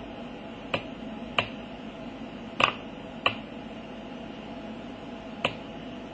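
Five short, sharp button clicks, irregularly spaced, some coming in pairs about half a second apart, as the oscilloscope's settings are stepped through. A faint steady hum runs underneath.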